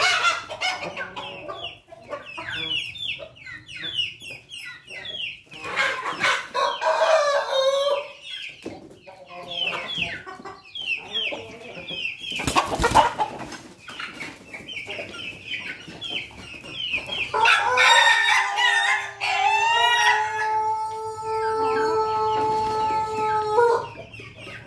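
A flock of young pelung, bangkok and ketawa cross chickens peeping and clucking, with a brief knock about halfway through. Near the end a rooster gives one long crow, about six seconds, held on a steady pitch.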